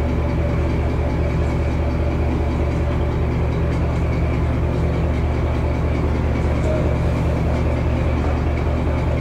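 A vehicle engine running steadily with a constant low hum.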